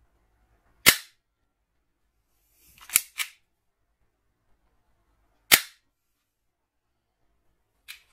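M09-2 toy water gel revolver firing: sharp single snaps about a second in and about five and a half seconds in, a quick double snap around three seconds, and a fainter click near the end.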